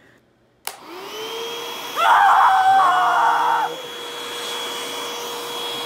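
Upright vacuum cleaner switched on about half a second in, its motor spinning up to a steady whine over a rushing hiss of air through the hose. About two seconds in it gets much louder for nearly two seconds, then settles back to the steady run.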